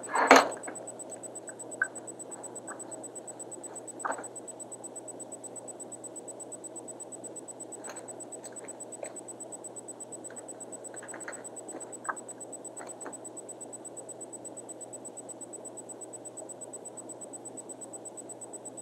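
Steady background hiss with a faint, steady high-pitched whine, broken by a few short taps and rustles of hands handling materials at a fly-tying vise; the loudest is a thump just after the start.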